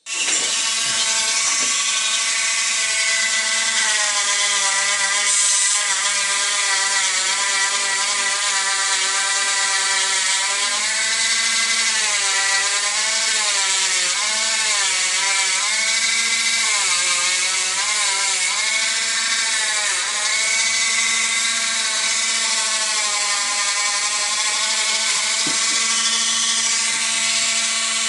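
Small handheld rotary tool with a thin disc running against a brass lighter part. Its motor whine wavers, dipping and recovering in pitch as the disc is pressed to the metal.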